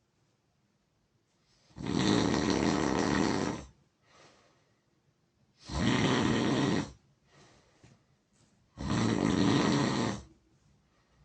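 A person snoring loudly: three long snores in a slow, even rhythm, each lasting one to two seconds, with near quiet between them.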